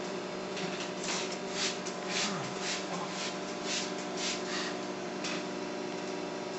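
Microwave oven running with a steady hum. About ten short, hissy scraping noises come over it from about a second in until about five seconds in.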